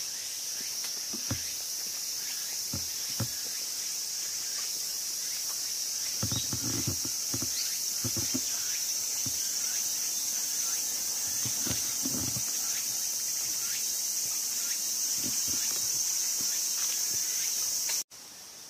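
A steady, high-pitched insect chorus, with irregular footsteps and light rustles now and then.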